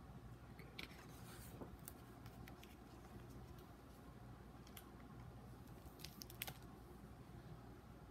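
Faint handling of a hardcover picture book: a few soft clicks and paper rustles as the last pages turn and the book is flipped to its back cover, over a steady low hum.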